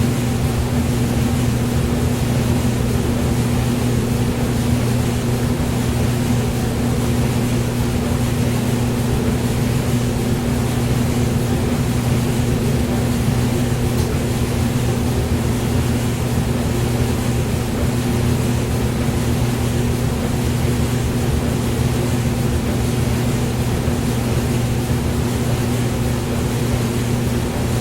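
Hair dryer running continuously as white noise: a steady low motor hum under an even hiss of blowing air, unchanging throughout.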